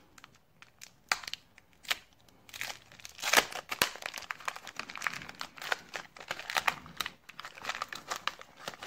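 Foil wrapper of a 1990 Leaf baseball card pack crinkling as it is opened and unfolded by hand: a few scattered crackles at first, then from about two and a half seconds in a dense, continuous crinkling.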